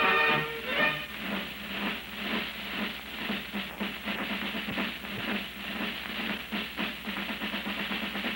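Old film-soundtrack music: a held chord breaks off about a second in, followed by a run of rapid, uneven drum and percussion beats.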